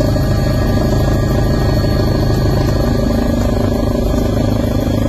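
Steady, loud drone of a helicopter's engine and rotor heard from inside the cabin, heavy in the low range with a fine, even flutter.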